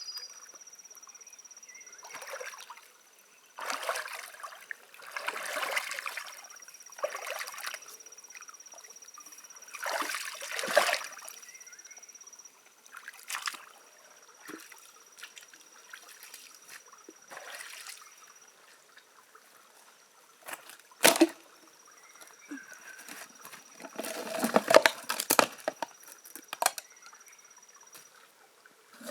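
Water sloshing and splashing in several irregular bursts, with one sharp knock a little past the middle; a thin, steady high tone comes and goes behind it.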